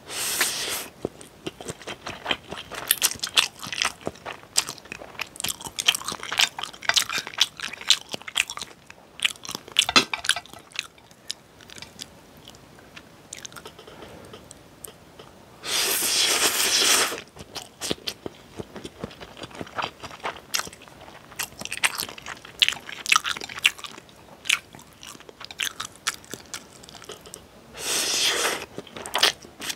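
Close-miked eating of Buldak spicy stir-fried instant noodles: three loud slurps of about a second and a half each, near the start, about halfway and near the end, with wet chewing clicks between them.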